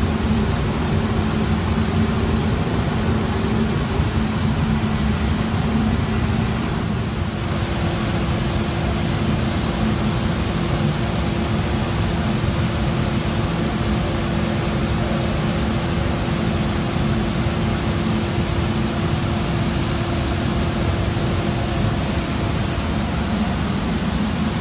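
Northwood TA125MT 3-axis CNC router running: steady machine noise over a low hum, with a second, higher steady tone joining about seven seconds in.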